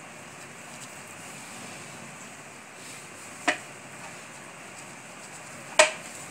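Two sharp taps, the second louder, as gloved hands set rounds of rolled dough onto a plastic tray on a stone counter, over a steady hiss.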